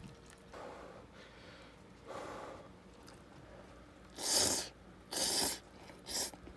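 A person sniffing close to the microphone, smelling something. Two softer sniffs come early, then three loud, sharp ones near the end.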